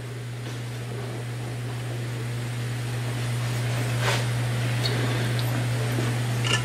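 A steady low background hum that slowly grows louder, with a few faint knocks as the electric motor is handled and set on the table, the clearest about four seconds in.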